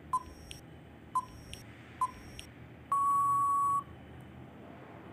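Quiz countdown timer sound effect: three short electronic beeps about a second apart, then one longer beep at the same pitch as the timer runs out.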